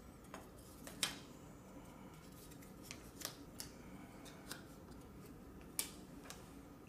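Faint, scattered clicks and taps of thin wooden slats being pulled out of the slots of a wooden base and set down on a wooden workbench, about seven in all, the sharpest about a second in and near the end.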